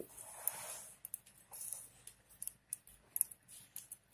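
Spanner clicking and scraping on the 11 mm bolts of a tractor clutch pressure plate as they are run in: a string of light, irregular metal ticks.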